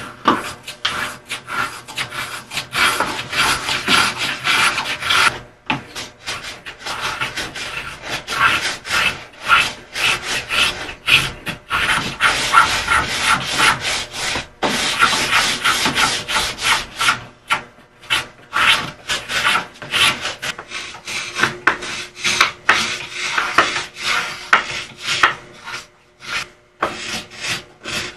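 Small hand-held blade tool scraping and shaving a hardwood piece in quick, repeated short strokes, with a few brief pauses between runs.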